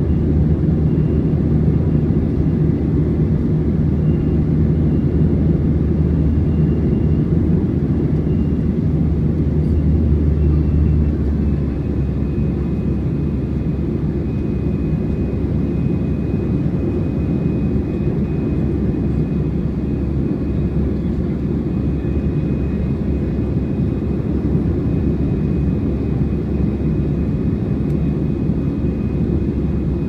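Cabin noise in an Airbus A321 climbing out: a steady rush of airflow and the drone of its CFM56 turbofan engines, with a faint high whine over it. About a third of the way in, the level drops slightly and the deepest part of the drone falls away.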